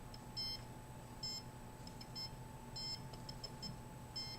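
Handheld RF (microwave) meter giving short, high-pitched beeps at an irregular rate, a few a second, as it picks up radio-frequency signals, over a faint steady tone.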